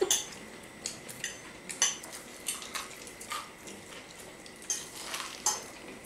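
Forks clinking and scraping on ceramic plates as noodles are eaten: a scatter of short, light clicks at irregular intervals.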